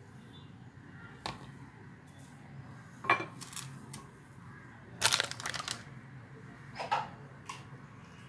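Dry torn bread being crushed and mixed by hand in a pan, the crusts crackling in a few short, sudden bursts, the loudest about three seconds in and a cluster about five seconds in.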